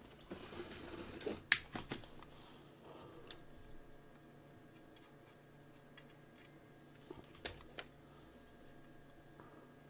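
Small metal tools being handled on a workbench: a brief rustle, then one sharp metallic click about a second and a half in and a few lighter clicks after it, with a few faint clicks later over a low steady hum.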